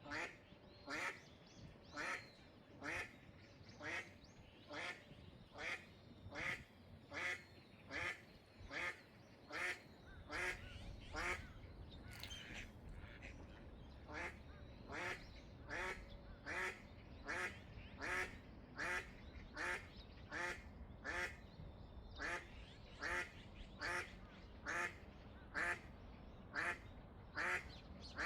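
Eastern spot-billed duck quacking loudly in a long, even series, about two quacks a second. A steady low rumble comes in about ten seconds in.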